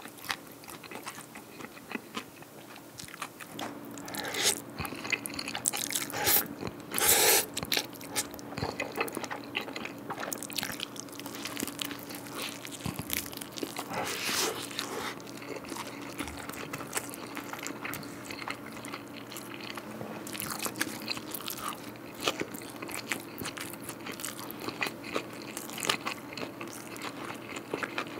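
Close-miked chewing of smoked pork and rice: wet mouth and lip sounds with a few louder crunchy bites, most of them about four to eight seconds in.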